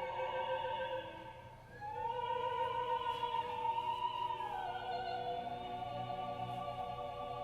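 Opera music playing back from tape on an Akai GX-266 II reel-to-reel deck: long sung notes over an orchestra, with a brief dip in level about a second in.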